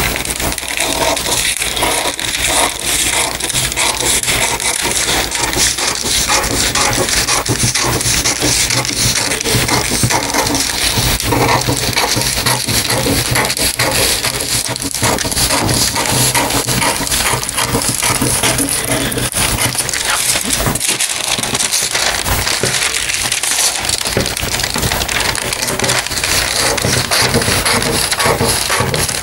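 Scissors cutting through a large sheet of pattern paper along a pencilled outline, the paper crackling and rustling continuously as the blades close and the sheet is moved.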